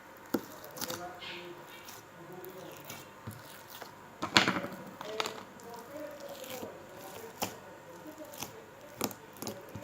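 Slime being squeezed and worked by hand, giving scattered wet clicks and squelching pops, the loudest a little over four seconds in.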